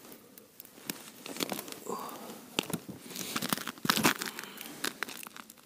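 Close rustling and crinkling of a winter jacket and fishing tackle being handled as a fish is hauled up through an ice hole. Scattered sharp clicks run through it, with the loudest burst of rustling about four seconds in.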